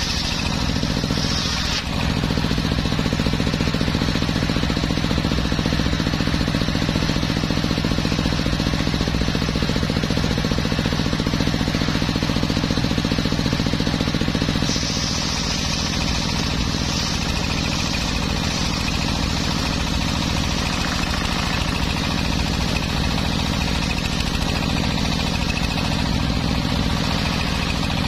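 Engine-driven homemade circular sawmill running steadily, its blade sawing through teak. About halfway through, a higher hiss comes in and the low engine hum eases.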